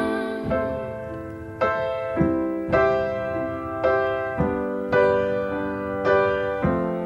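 Piano chords from a song, struck every half-second to a second and left to ring out, with no singing over them.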